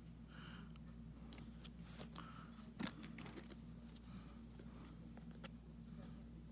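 Faint scattered clicks and light taps from small tools and fingers handling the opened iPhone's battery cable and bracket, with one sharper click a little before three seconds in. A steady low hum runs underneath.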